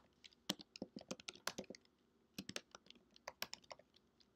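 Faint typing on a computer keyboard: quick, irregular key clicks with a short pause about two seconds in.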